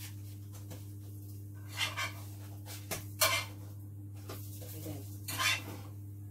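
A cooking utensil scraping and clinking against a frying pan while a pancake is turned and lifted: a few short scrapes and clicks, the sharpest about three seconds in, over a steady low hum.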